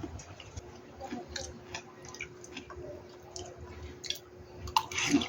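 A person eating stir-fried ramen: chewing, with scattered small clicks and taps, and a louder noise about five seconds in.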